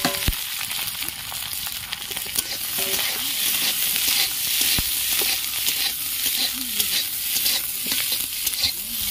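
Chopped onion and green capsicum sizzling in hot oil in a kadai over a high wood fire, stirred with a metal ladle: a steady frying hiss with a few clinks of metal on the pan, a couple of them at the start.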